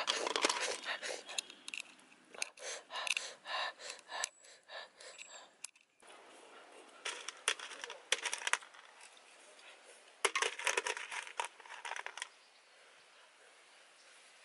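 Small snail shells clinking and rattling against each other and the inside of a metal pot as a hand stirs and picks through them in shallow water. The clicks come in quick clusters with short pauses between, and die away near the end.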